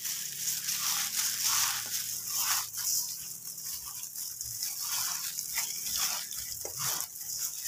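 A plastic-gloved hand squeezing and rubbing grated coconut with sugar and butter: an irregular crunching rustle of sugar grains, coconut shreds and the plastic glove, rising and falling with each squeeze.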